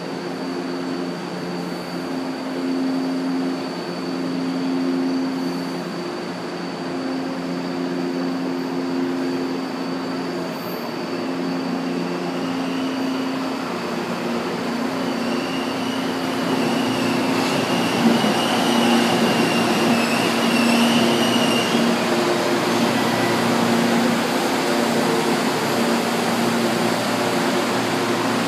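Electric subway trains running through a station. Under it is a steady electric hum and whine. From a little past halfway the sound grows louder as a train comes up and passes close, with a wavering high squeal for several seconds.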